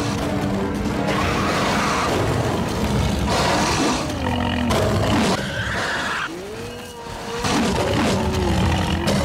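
Background music with dinosaur roar sound effects: several wavering, gliding calls about midway through and near the end.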